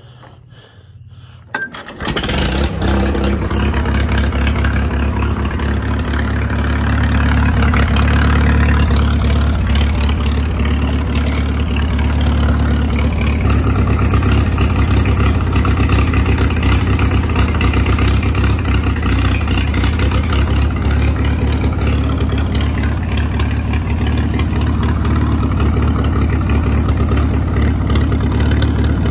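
Hand-cranked Farmall tractor engine firing up about two seconds in, then running steadily. The old tractor has no starter.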